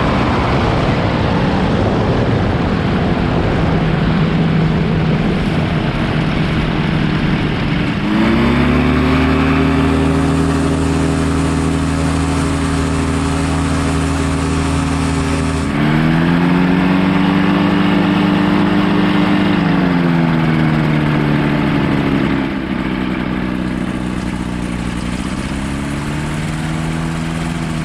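Quicksilver ultralight's engine and propeller running at low power during the landing rollout, with wind rush over the microphone for the first several seconds. After that the engine's steady drone comes through clearly, its pitch shifting down and back up a few times.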